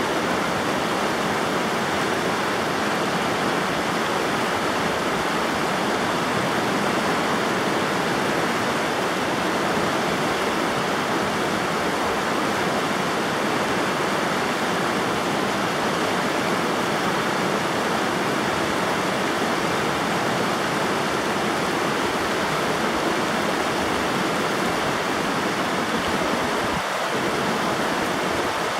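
River water rushing steadily, an even, unbroken noise of flowing water.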